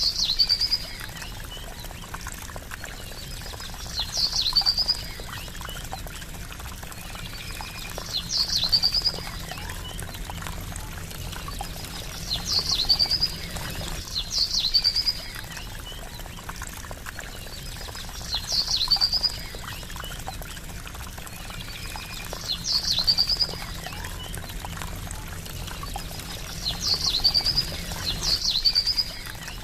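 Gently trickling, splashing water, with a short high bird call repeating about every four seconds: a quick falling note that runs into a brief trill.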